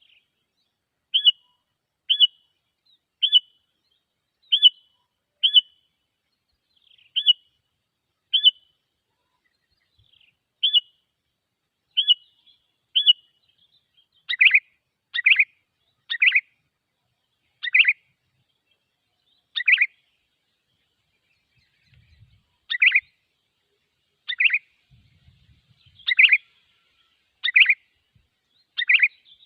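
Sooty-headed bulbul calls used as a lure to draw bulbuls in. Short, sharp notes repeat about once a second, and from about halfway they give way to louder, lower-pitched calls at a slightly slower pace.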